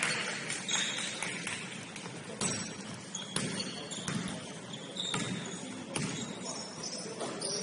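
Basketball bouncing on a gym court: irregular thumps about once a second, with short high squeaks in between.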